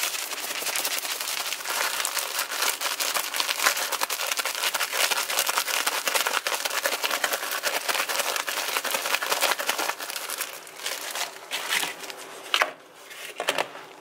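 A sealed plastic bag of flour with grouse meat inside being shaken to dredge the meat, the plastic crinkling rapidly and without a break. About ten seconds in the shaking stops and only a few scattered rustles of the bag are left.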